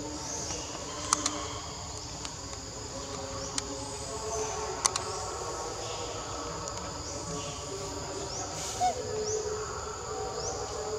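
Insects droning steadily in a high, even chorus, with short chirps repeating through it. A few sharp clicks stand out, about a second in and again near five seconds.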